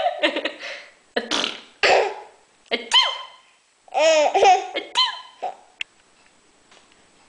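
A baby laughing in several short bursts of giggles and squeals over the first five seconds or so.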